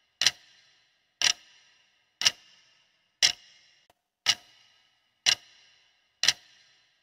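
Clock-tick sound effect for a quiz countdown timer: seven sharp ticks, one a second, each with a short fading ring.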